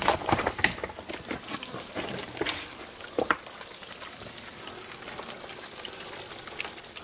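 Thin falls of water trickling and spattering down a wet rock face at a small waterfall, a steady hiss full of small drips.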